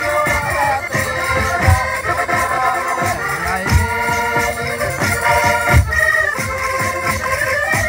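Minho folk dance music: a held, sustained melody over a steady beat, with a heavy low drum stroke about every two seconds.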